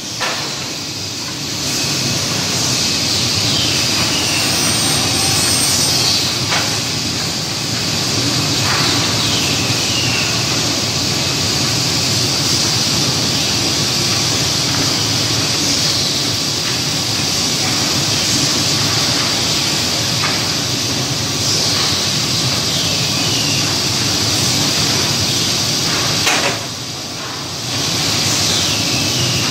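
Steady hissing machine noise with a low hum from a running high-frequency wood-panel assembly press, with a few sharp knocks. The noise drops briefly near the start and again near the end.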